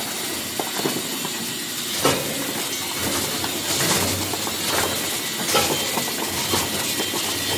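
Enerpat MS03 e-waste shredder running, its cutters breaking up electronic scrap dropped into the hopper: a steady mechanical noise broken by irregular sharp cracks and crunches about once a second.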